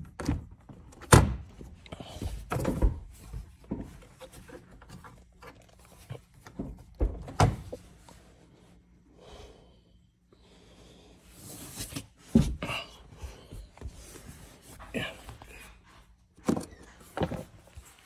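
Plastic B-pillar trim panel of a 2022 Honda Civic being pulled and worked loose by hand: a series of sharp knocks and thunks of hard plastic, the loudest about a second in, with a quieter stretch in the middle.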